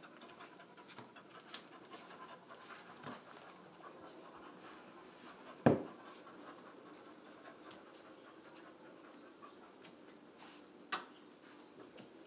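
American pit bull terrier panting quietly, with a few light clicks and one sharp thump about halfway through.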